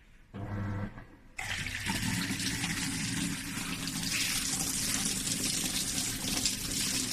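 Toshiba washing machine water inlet valve: a brief electrical hum, then, about a second and a half in, water rushing steadily through the valve into the machine over a low hum.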